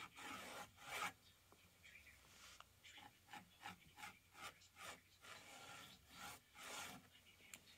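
Faint paintbrush strokes scrubbing paint onto a textured canvas: dry, scratchy strokes, a longer one at the start and another near the end, with a run of short dabs at about three a second in between.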